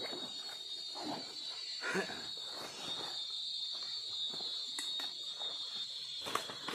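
Steady high-pitched chorus of insects in the riverside vegetation, with scattered rustles and a few sharp clicks from fishing gear and bags being handled, the loudest click near the end.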